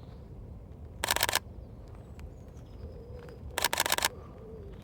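Sony A6400 camera shutter firing in two short rapid bursts of continuous shooting, about a second in and again after three and a half seconds.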